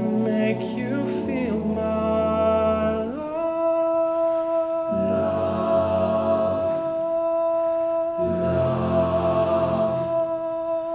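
All-male a cappella group singing: a solo voice holds one long high note from about three seconds in, while the lower voices sing sustained chords underneath that drop out and come back in twice.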